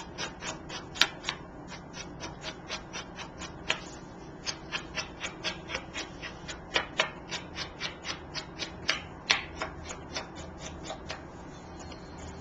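Chalk ink pad tapped and dabbed along the edges of card stock: a steady run of light taps about three a second, stopping about eleven seconds in.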